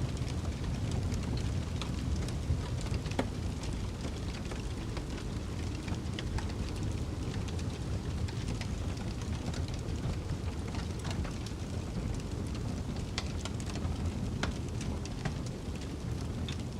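Log fire in a fireplace crackling, with frequent irregular sharp pops, over a steady low rumble of snowstorm wind.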